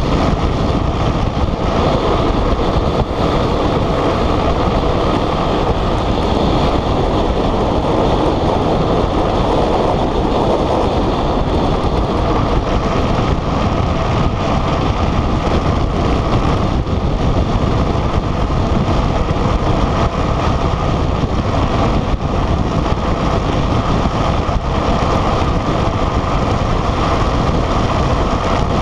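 Steady rush of wind over the microphone and the rumble of an unpowered speed trike's wheels rolling fast on rough asphalt, with no engine.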